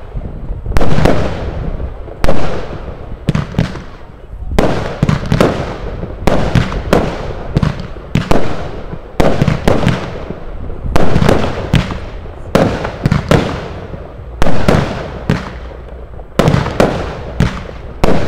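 GAO Memories consumer firework battery (cake) firing shot after shot: loud, sharp bangs about once or twice a second, each trailing off.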